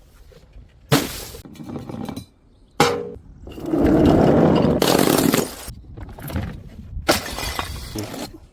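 Glass bottles smashing: sharp breaks about one, three and seven seconds in, with a longer loud stretch of breaking glass in the middle.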